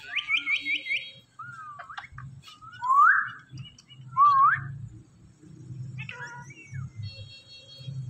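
Indian ringneck parakeets calling: a quick run of five short rising chirps at the start, then two loud upward-sliding whistles a little over a second apart, followed by a few softer chirps, over a low steady hum.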